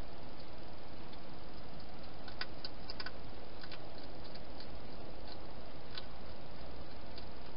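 A wild European hedgehog feeding at a bowl: faint, irregular crunching clicks, a quick run of them a couple of seconds in, then scattered ones, over the steady hiss of the camera's microphone.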